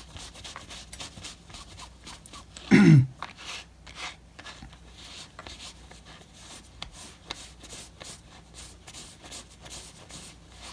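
A cloth sock buffing dried leather balm off a beaver-tail leather wallet, making soft, quick rubbing strokes. About three seconds in comes one brief, loud vocal sound that falls in pitch.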